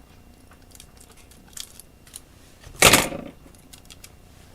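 Hands working on a cassette tape splice: a few light clicks, then one short, loud rasp about three seconds in.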